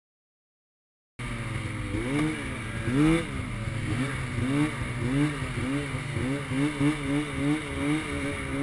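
About a second of silence, then a Polaris IQ 600 snowmobile's two-stroke twin engine cuts in suddenly, running under load with its pitch rising and falling over and over as the throttle is worked, the swings coming quicker, about two a second, later on.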